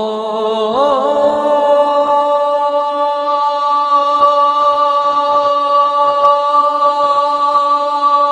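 A man's voice chanting a takbir ('Allahu akbar') in the call-to-prayer style, holding one long unbroken note at a nearly steady pitch, with a brief waver about a second in.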